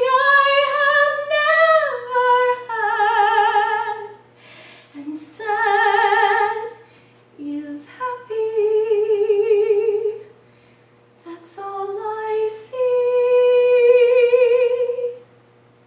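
A young woman singing solo and unaccompanied, holding long notes with a wide vibrato in several phrases, with short breaths between them.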